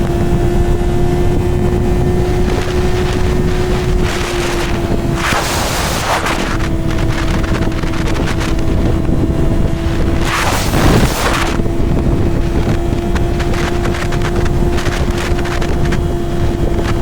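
Honda CBR600RR inline-four with an aftermarket slip-on exhaust, running at a steady engine speed on the move under heavy wind noise on the built-in microphone. Two louder rushes of wind come about five and eleven seconds in.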